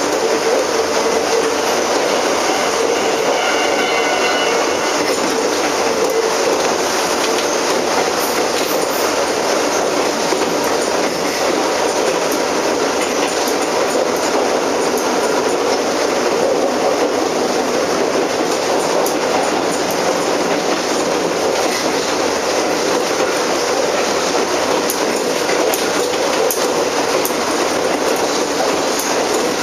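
Ex-Tokyu 7000-series stainless electric railcar with Hitachi electrical equipment running along the line, heard from inside its rear cab: a steady rumble of wheels on rail with scattered rail-joint clicks. A faint, brief whine comes about three seconds in.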